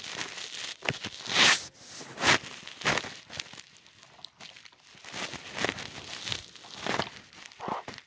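Irregular rustling and crinkling: a string of short noisy swishes, uneven in spacing and loudness.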